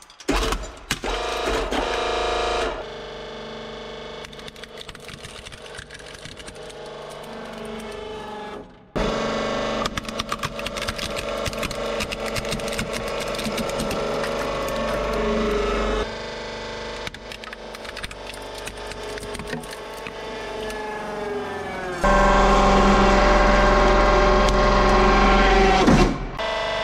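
Hydraulic press motor running with a steady hum while plastic toys crack and crunch under the ram. The sound changes abruptly several times, and the hum is loudest near the end.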